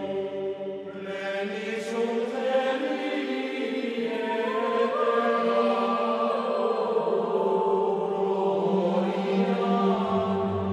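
Devotional chant music: voices holding long, gliding notes over a steady drone.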